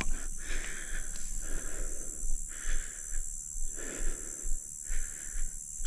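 Steady high-pitched chorus of insects, with soft irregular noises close to the microphone about once a second.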